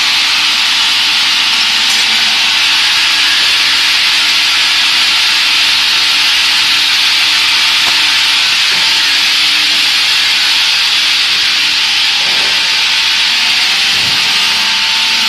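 Woodworking cross-cutting saw machine running, a loud, steady, even noise that does not change.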